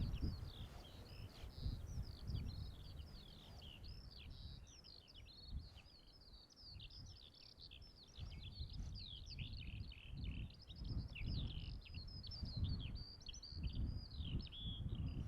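Small birds singing in a dense, continuous run of quick high chirps and trills, with gusts of wind rumbling on the microphone.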